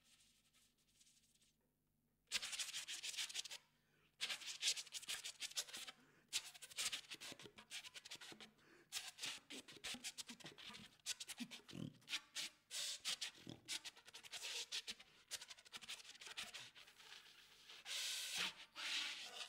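Soprano saxophone played with extended techniques: breathy, scratchy air noise and rapid clicking in irregular bursts instead of held notes, starting about two seconds in after near silence.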